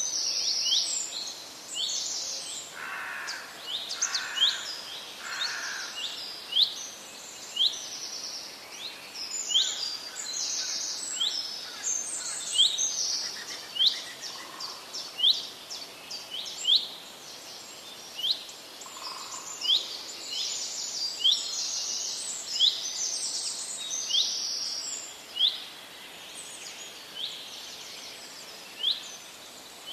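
Birds chirping: many short, high chirps a few times a second over a faint steady hiss.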